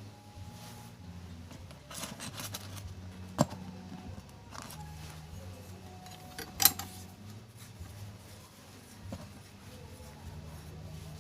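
Small metal parts of a sewing machine being handled and fitted by hand: light rustling, then two sharp metallic clicks a few seconds apart, the second the loudest, over a faint low hum.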